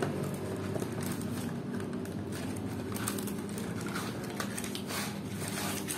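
Foil blister strips being slid out of a cardboard medicine box by hand, with irregular crinkling and rustling of foil and card. A steady low hum runs underneath.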